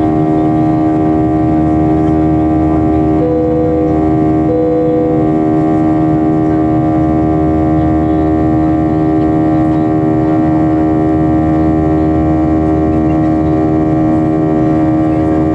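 Cabin drone of a Boeing 737-800's CFM56-7B24E turbofan engines in flight, heard from a window seat by the wing: a steady hum of several held tones over a low rushing rumble.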